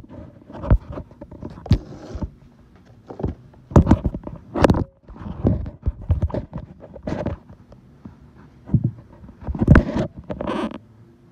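Irregular knocks, taps and rubbing of a phone being moved about and set down on a workbench, with tools and parts handled beside it. A longer scrape comes shortly before the end.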